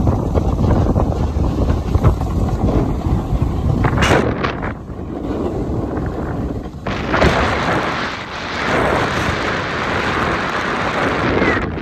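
Wind buffeting the microphone while moving fast down a groomed ski slope, a low rumble. From about seven seconds in, a rough hiss of edges scraping over packed snow joins it. The sound drops off abruptly at the end.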